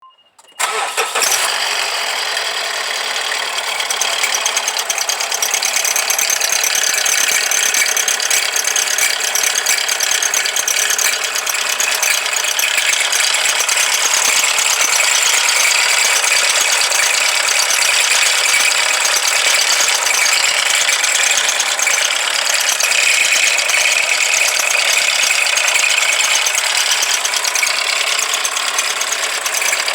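Abnormal noise from a Mazda CX-5's engine compartment: a fast, continuous mechanical ticking rattle that starts suddenly about half a second in and keeps on steadily.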